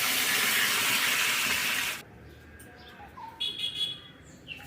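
Water poured into a hot pan of frying spice paste, hissing and sizzling loudly and steadily, then cutting off abruptly about two seconds in. After that a bird chirps briefly.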